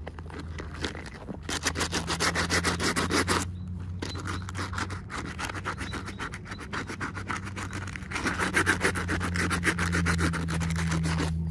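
Rapid, rhythmic rubbing and scraping in two main spells, with weaker scraping between them, over a steady low hum.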